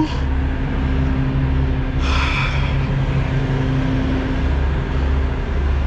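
Heavy truck's diesel engine idling steadily, with a brief hiss about two seconds in.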